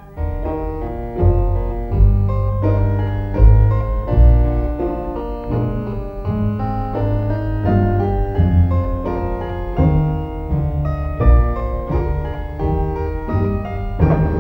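Piano music cutting in suddenly: a steady stream of short notes over a low bass line.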